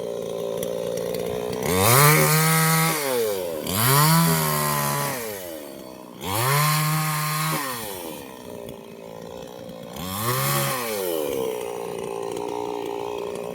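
Two-stroke chainsaw engine idling and being revved four times; each time the pitch climbs fast, holds for about a second and drops back to idle.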